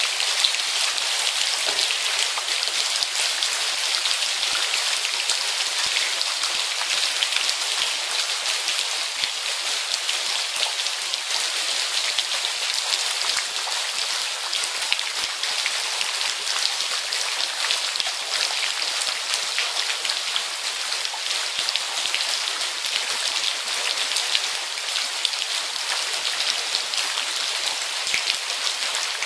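Heavy rain pouring steadily, a dense, even hiss of drops on leaves and the flooded pavement.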